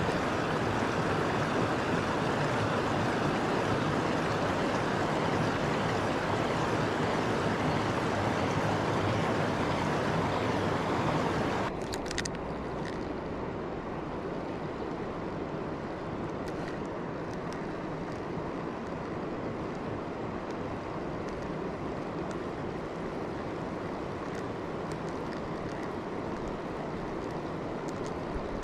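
Steady rushing of river rapids. About twelve seconds in it drops suddenly to a quieter, duller rush.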